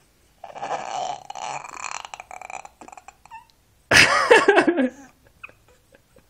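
Seven-month-old baby vocalising: a rough, breathy throat noise lasting about two seconds, a few small clicks, then about four seconds in a louder, higher squeal that wobbles in pitch and trails downward.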